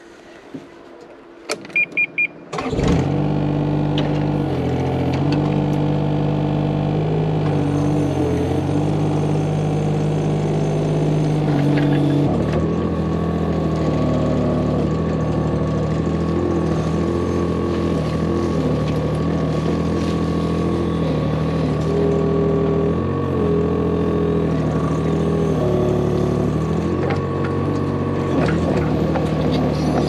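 Kubota KX41-3V mini excavator: a few short beeps, then its three-cylinder diesel starts about two and a half seconds in and runs steadily. From about twelve seconds in the engine runs on while the excavator digs soil, with a steady higher whine added.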